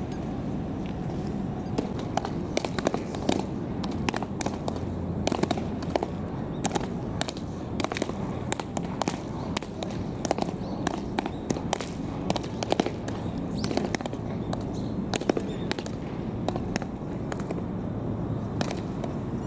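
Baseballs smacking into leather gloves as several players play catch: many sharp pops at uneven intervals, sometimes two or three close together.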